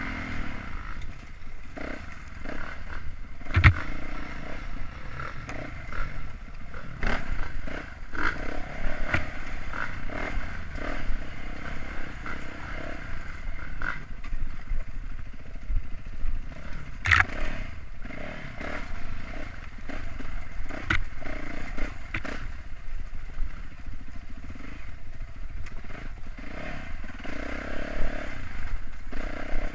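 A 450 cc four-stroke dirt bike engine running under constantly changing throttle while the bike climbs a rocky trail. The bike clatters and scrapes over rocks throughout, with several sharp knocks, the loudest about 4 seconds in and again near the middle.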